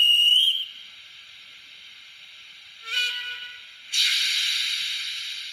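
Sound decoder of a Minitrix N-scale class 01 steam locomotive model, played through its small loudspeaker: a short steam whistle at the start, a second brief whistle about three seconds in, then a loud hiss of released steam about a second later that slowly fades.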